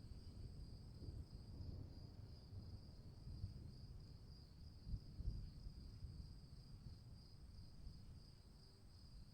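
Crickets chirring steadily in a high, even drone over a faint low rumble of distant thunder, which swells briefly about five seconds in and then fades away as the storm dies down.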